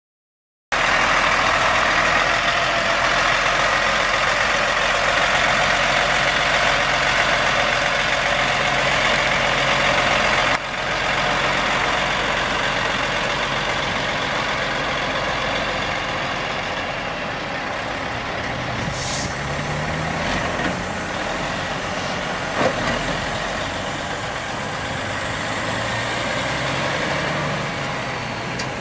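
Caterpillar C12 diesel engine of a 2000 Peterbilt 377 semi tractor running as the truck is driven, its pitch rising a few times as it pulls. There is a short hiss about two-thirds of the way through.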